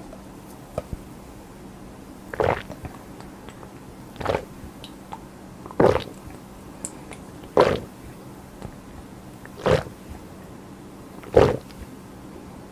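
A person gulping fizzy cola straight from a plastic bottle without stopping: six distinct swallows, about one every two seconds.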